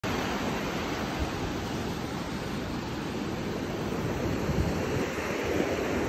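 Shallow surf washing up a flat sandy beach, a steady hiss of breaking waves, with a few brief low rumbles of wind on the microphone.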